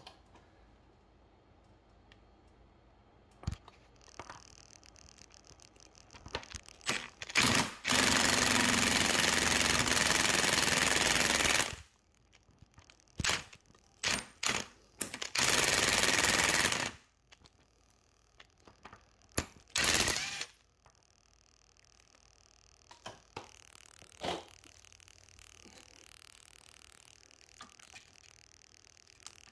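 Impact wrench hammering on the front sprocket drive nut of a Yamaha FZ1 to break it loose: one long run of about four seconds, a few short bursts, another run of about a second and a half, then one last short burst.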